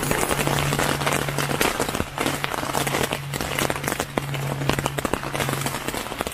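Rain pattering on the tent fabric, heard from inside the tent: a dense, steady spatter of drop hits, with a low hum that comes and goes underneath.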